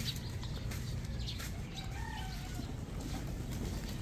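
A rooster crowing faintly in the distance about two seconds in, over a steady low hum.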